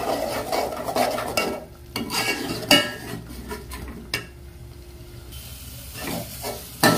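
A perforated metal spoon stirring and scraping thick onion-tomato masala paste in a metal pot, with the paste sizzling in hot oil as it fries until the oil separates. The spoon knocks against the pot several times, and the stirring eases off about four seconds in before picking up again near the end.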